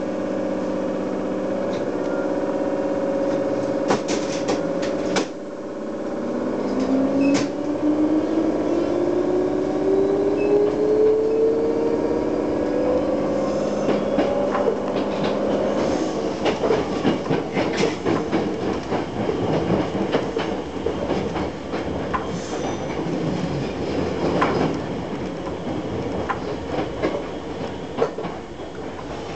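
Train heard from inside the front car as it pulls away: a steady motor hum, then a whine that climbs steadily in pitch as the train accelerates. After that come dense, irregular clicks and rattles of the wheels running over rail joints.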